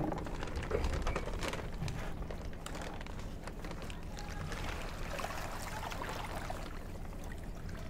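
Faint trickling and sloshing of water as a plastic fish-shipping bag is emptied into a plastic tub, with light crinkles from the bag.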